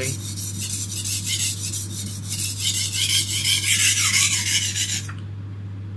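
Steel knife blade stroked back and forth on an oiled Fine India oilstone: a run of repeated gritty scraping strokes that stops about five seconds in.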